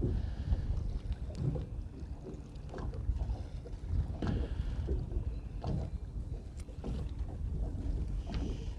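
Wind rumbling on the microphone aboard a small open boat, with water sloshing and scattered short knocks and clicks from handling gear on deck.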